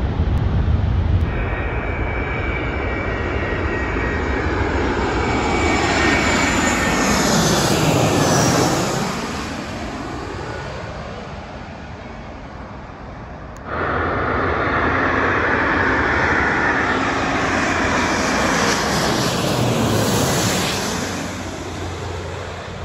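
Jet airliners passing low overhead on landing approach, two in turn. Each builds to a loud engine whine that sweeps down in pitch as the plane goes over, then fades. The second starts abruptly about 14 seconds in.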